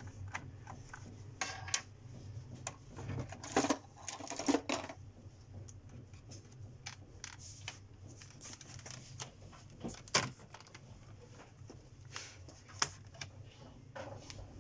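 Snap-fit clips of an HP NV15 laptop's bottom cover clicking and crackling loose as the cover is pried open around its edge. Scattered clicks, with a louder crackling cluster a few seconds in, over a low steady hum.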